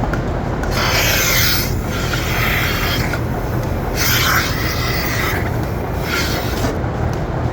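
Steady drone of milking-barn machinery, with five rasping hisses of half a second to a second each over it.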